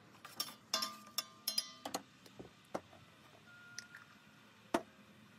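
Metal spoon clinking against the side of a stainless steel cooking pot while stirring soup: a quick run of ringing clinks in the first two seconds, then a few scattered single taps.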